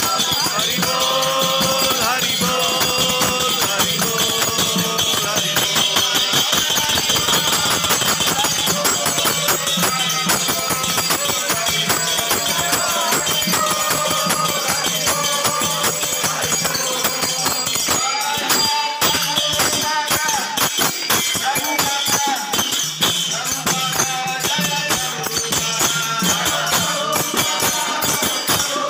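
Devotional kirtan: voices singing over a steady rhythm of small brass kartal hand cymbals and a two-headed mridanga drum.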